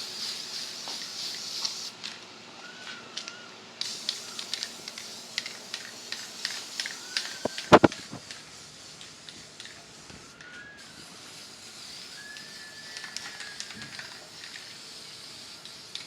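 Primer spraying onto a rusty truck bed in bursts, a steady high hiss: about the first two seconds, then again from about four seconds until near eleven seconds. Scattered clicks run through it, with one loud sharp knock near eight seconds.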